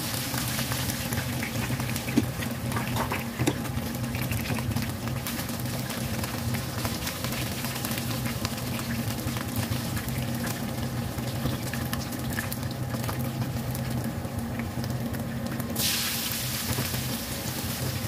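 Oil sizzling in a wok as spices fry, stirred with a silicone spatula, with a few light taps and a steady low hum underneath. About sixteen seconds in, the sizzle grows suddenly louder and brighter as sliced onions go into the hot oil.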